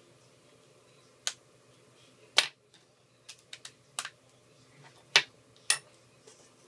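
About eight sharp, irregular clicks and taps of small tools and phone parts being handled and set down during an iPhone 4 repair, the two loudest about two and a half and five seconds in.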